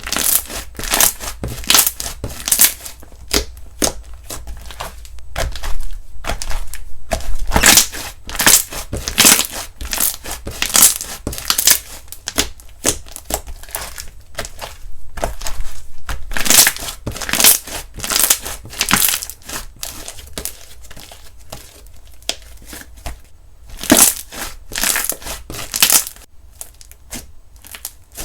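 Slime being squeezed and kneaded by hand close to the microphone, giving dense, irregular crackling and popping clicks in bunches.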